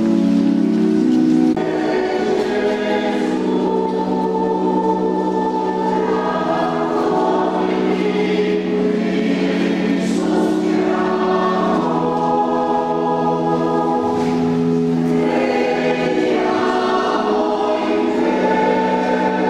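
Choir singing a slow sacred hymn in long held notes, the chords changing every few seconds; the sound shifts abruptly about a second and a half in.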